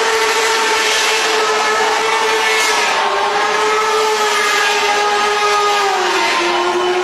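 Motorcycle engine held at high, steady revs as the rear tyre spins on the pavement in a smoking burnout, over a harsh hiss. The pitch sags briefly near the end.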